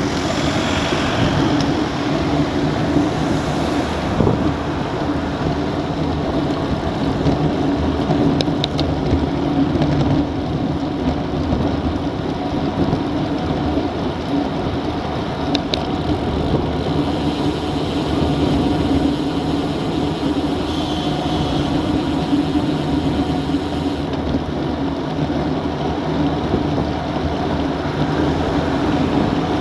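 Steady wind rush on the microphone of a bike-mounted action camera, mixed with tyre and road noise from a road bike riding at about 20 to 35 km/h. A couple of brief faint ticks come about 8 and 16 seconds in.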